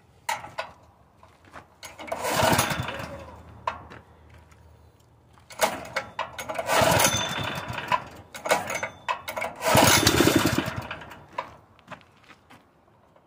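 Honda GX160 single-cylinder engine being pull-started with its recoil starter, turning over in three loud spells of a second or two each without staying running. The owner suspects weak valve springs and a needed valve job.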